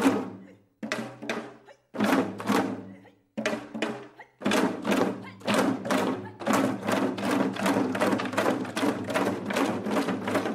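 Background music built on sharp drum strikes over a low held tone: a few strikes spaced more than a second apart, then from about four and a half seconds in a steady beat of roughly three strikes a second.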